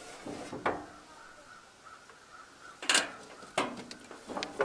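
A few sharp clunks and knocks from hands working at an old riding lawn mower's hood and engine area, the loudest about three seconds in.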